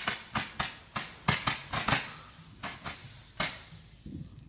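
Multi-shot firework cake firing: a quick run of sharp bangs, about three a second, thinning out and stopping about three and a half seconds in.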